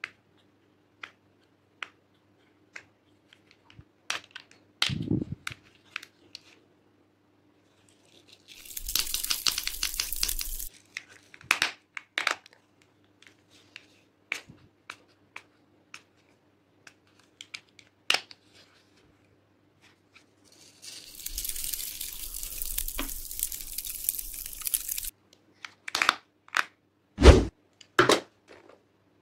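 Fingernails clicking and tapping on a plastic compartment case of sequins and glitter, with two longer spells of rattling, sprinkling hiss as sequins and glitter are poured out onto a glass baking dish, the second spell longer. A few sharper knocks near the end.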